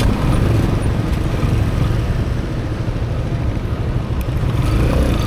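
Motorcycle engine running steadily, a constant low rumble.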